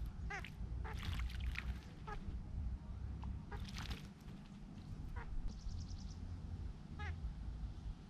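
Babblers giving short, harsh, nasal calls, single notes spaced a second or two apart, with a couple of bursts of splashing water as a babbler bathes in a shallow puddle. A quick run of high ticking notes comes in the middle, over a steady low rumble.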